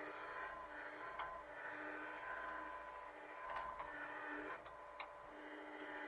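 Hitachi mini excavator's engine running steadily, with a few sharp knocks about a second in and again several times between three and a half and five seconds in.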